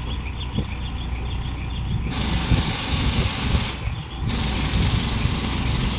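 An engine running steadily with a low rumble. Two long bursts of loud hissing cut in and out sharply over it: the first starts about two seconds in and lasts about a second and a half, and the second starts just after four seconds.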